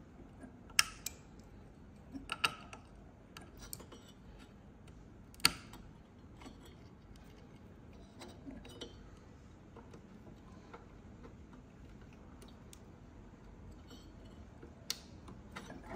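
Scattered small, sharp plastic clicks and taps as a wire-harness connector is handled and pressed onto a pin header on a circuit board. The loudest clicks come about a second in and about five and a half seconds in.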